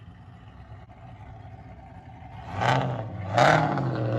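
Car engine running at a low murmur, then revved twice, about two and a half and three and a half seconds in, its pitch rising and falling with each rev.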